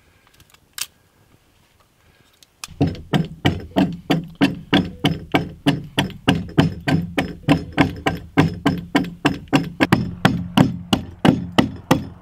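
Hand axe chopping into a log's corner notch in a fast, even rhythm of several strikes a second, starting a few seconds in after a near-quiet opening with a single sharp click.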